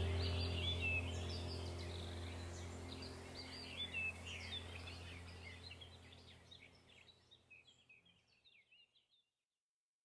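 Small birds chirping and twittering in quick, high calls over a low steady hum, the whole fading out to silence about eight seconds in.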